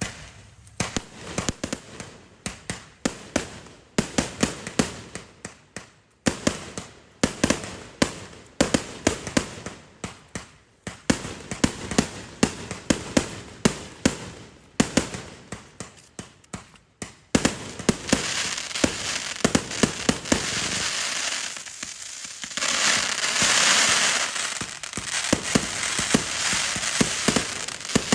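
A 200-shot finale cake firework going off in rapid volleys, several shots a second with brief pauses. About two-thirds of the way through, the shots give way to a dense, continuous crackling that swells and then carries on under further shots.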